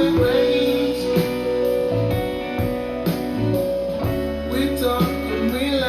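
Acoustic guitar-led pop song with a singing voice holding long notes, over a steady bass.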